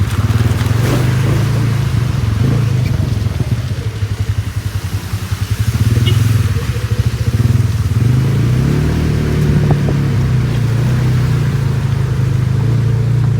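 A car driving: a steady low engine and road rumble that pulses rapidly for a couple of seconds near the middle.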